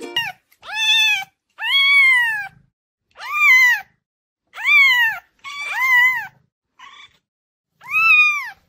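Domestic cat meowing repeatedly, about seven meows in a row with short pauses between them. Each meow rises and then falls in pitch, most lasting half a second to a second. One near the end is short and faint.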